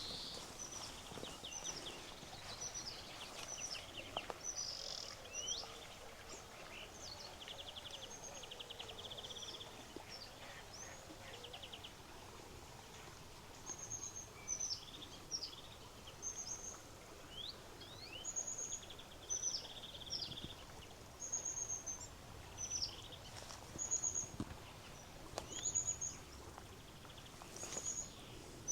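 Several songbirds singing: short high chirps, quick falling whistles and two buzzy trills, with one bird repeating a short high note about every second in the second half, over a faint steady background hiss.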